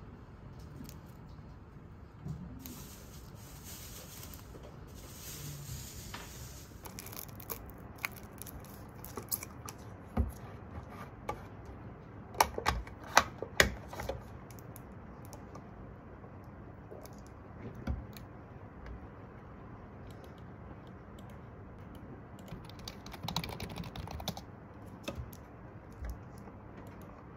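Scattered light clicks and taps at an office desk over quiet room tone. A soft hiss runs for a few seconds near the start, and a quick run of sharper clicks comes about halfway through.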